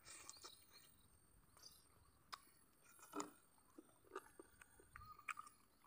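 Faint chewing of a mouthful of chicken and rice, with scattered small wet mouth clicks and one slightly louder short sound about three seconds in.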